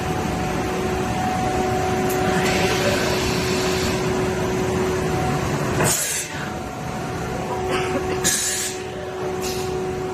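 CNC machining centre running: a steady motor whine over a noisy machine hum, with several short hisses of compressed air in the second half.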